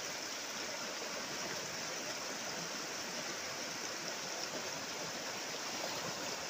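A river running fast over rocks and shallow rapids, a steady, even rush of water.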